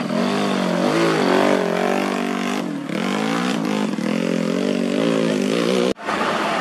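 Dirt bike engine revving up and down in quick, repeated swings under load. It cuts off abruptly about six seconds in, followed by a steadier, less distinct noise.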